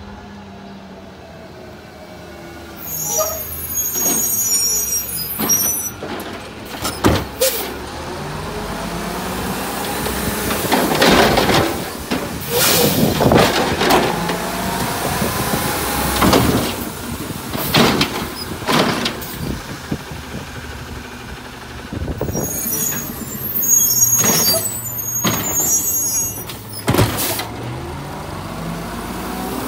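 Refurbished 2009 Autocar dual-axle automated side-loader garbage truck working carts: air brakes hiss as it stops, twice, and the engine revs up and down as the hydraulic arm lifts and dumps the cart, with several knocks and bangs from the cart and arm.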